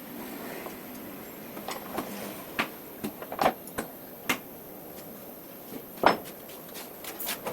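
Scattered clicks and knocks, about ten in all, of parts being handled and fitted on a homemade wood planer, over a low steady hiss.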